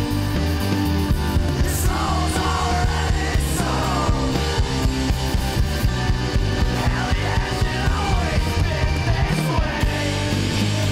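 Rock music playing at a steady level, with a singing voice coming in and out over the band.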